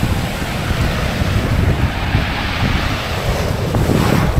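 Sea waves breaking and washing up a shingle beach, with wind buffeting the microphone.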